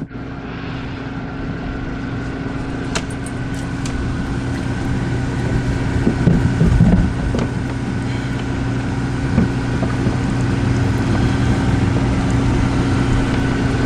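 Recirculating dog-bathing system running: a steady pump hum with water spraying from the hose through the dog's wet coat.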